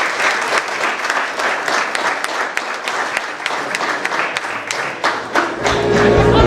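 Audience applauding with many hands, a dense patter of claps. About five and a half seconds in, music with a heavy bass comes in.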